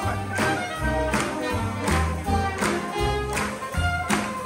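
Live swing band playing jazz, with a bass line moving note to note under pitched instrument lines and regular drum hits keeping a steady beat.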